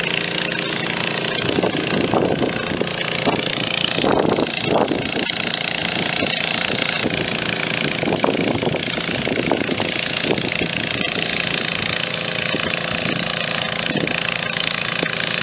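Engine-driven water pump running steadily at a constant speed, pumping water into an AquaDam water-filled flood barrier.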